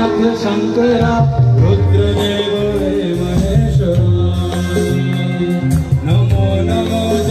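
Live band music through a large concert PA: a singer performing a devotional song over drums, guitar and keyboard.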